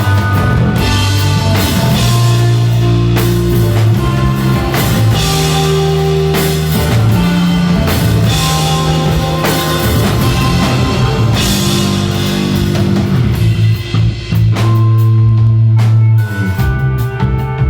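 Live instrumental rock band playing: electric guitar, bass guitar and drum kit, with sustained low bass notes under cymbal and drum hits.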